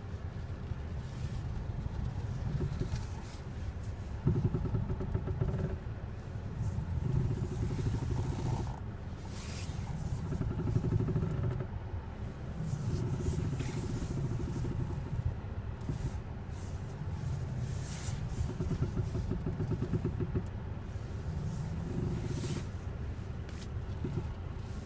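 Toyota Avensis squeaking as the steering wheel is turned: a pitched creak in repeated bouts of one to two seconds, a few seconds apart, over a steady low engine rumble.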